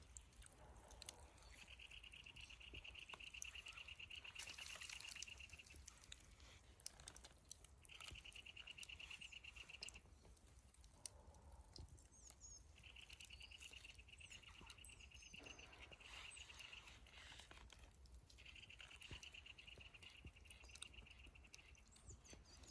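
A high, rapidly pulsed animal trill, repeated four times in stretches of a few seconds with short gaps between, over faint higher chirps.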